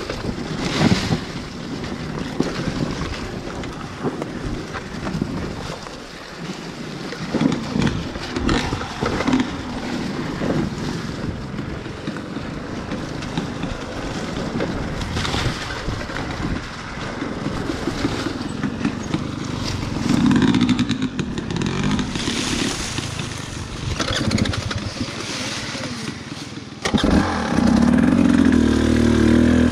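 Dirt bike engine running at low speed on a tight wooded trail, rising and falling with the throttle. It gets louder for a moment about two-thirds of the way through and again in the last few seconds.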